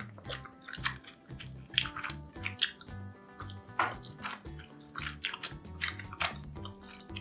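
Background music with a steady bass line, with irregular sharp crisp clicks or crunches over it.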